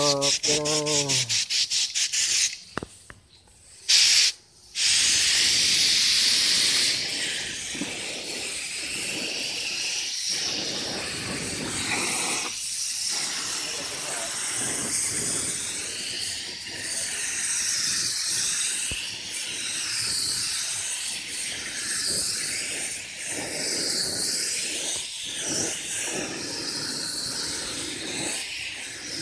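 Gravity-feed air spray gun hissing as it sprays primer onto a plastic bumper. A couple of short blasts come in the first few seconds, then a steady spray hiss from about five seconds in, rising and dipping a little as the gun is worked along the panel.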